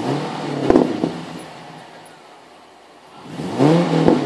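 Holden VZ SS Z V8 with a 2.5-inch twin catback exhaust free-revved twice while stationary. Each rev climbs and drops back, with a sharp crack near its peak, and the engine settles to a low idle between them.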